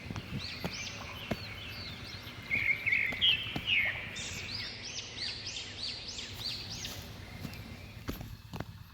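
Small birds chirping outdoors: a run of short, quickly repeated high notes starting about two seconds in, over a faint steady background hiss.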